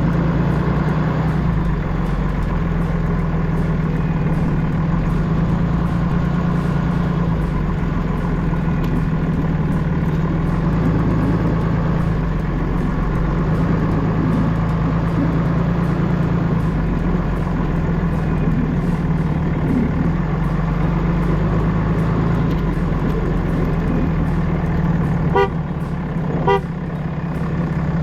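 An engine running steadily with a low, even hum. Near the end, two short beeps about a second apart.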